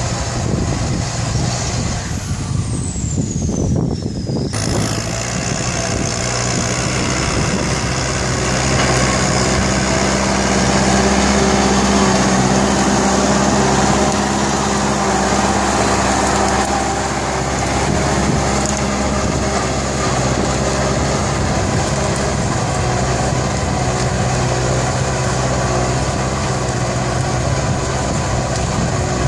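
Kubota tractor's diesel engine running steadily under load as it pulls a tillage implement through dry soil. It grows louder for a few seconds in the middle, with a brief dropout about two seconds in.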